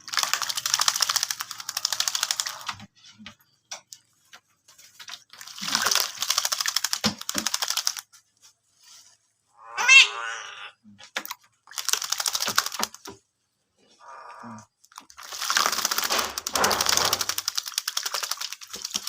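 A Javan myna bathing: four bursts of rapid wing-splashing in water, a few seconds apart. A short squeaky call rises in pitch about ten seconds in, and a brief note follows a few seconds later.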